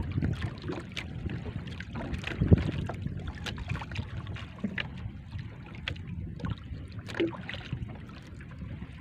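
Wind buffeting the microphone while small waves slap and knock against a small outrigger boat's hull, with scattered sharp knocks and one louder thump about two and a half seconds in.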